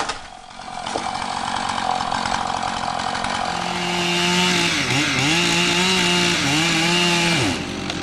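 A two-stroke chainsaw comes in at high revs about three and a half seconds in, dips in pitch twice, then cuts off suddenly near the end.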